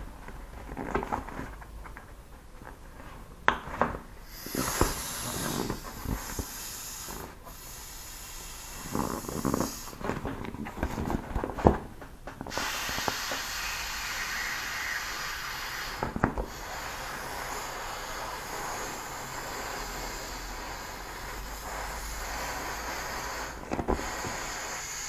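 Intex inflatable camping pillow being deflated by hand: for the first twelve seconds or so, scattered crinkles and squeaks of the vinyl being squeezed, then a steady hiss of air rushing out through its wide valve as the pillow is pressed flat.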